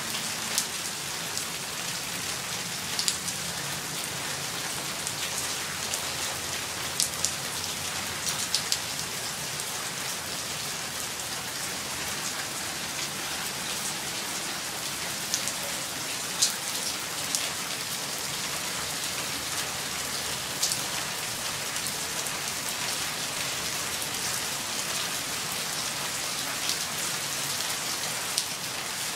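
Steady light-to-medium rain: a constant hiss of falling rain with scattered sharp taps of single drops striking close by.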